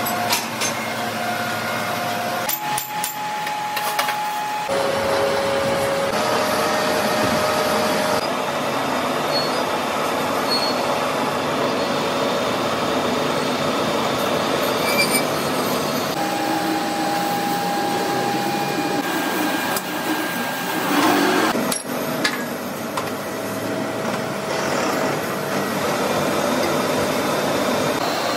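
Metalworking machinery running: a steady mechanical din with a thin whining tone that jumps to a new pitch several times.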